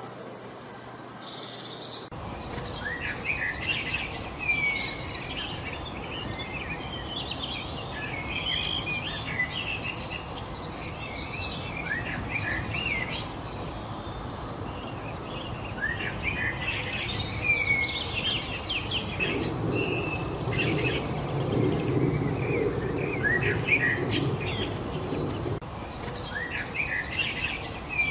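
Several birds chirping and calling busily over a steady background hiss, the chorus starting about two seconds in. Partway through, a low rumble swells for several seconds under the calls.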